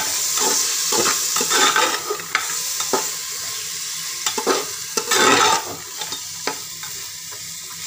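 Soaked kidney beans sizzling as they fry in masala in a pressure cooker, stirred with a metal ladle that scrapes and knocks against the pot, loudest about five seconds in.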